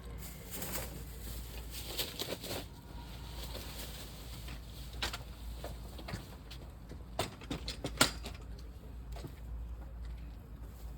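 Firewood crackling and popping in a wood-burning camping stove, with scattered sharp pops, the loudest about eight seconds in, over a steady low rumble. Some of the wood is still wet and drying out in the fire.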